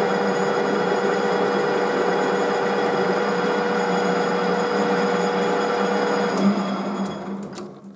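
Metal lathe running steadily, a tailstock drill boring out the broken stud stuck in a hex thread chaser, with a steady mix of motor and gear tones. About six seconds in there is a click and the lathe winds down and stops near the end.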